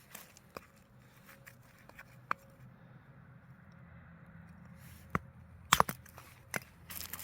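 Sharp, sparse knocks of a mini axe striking and splitting acacia firewood, loudest as a quick double knock about six seconds in.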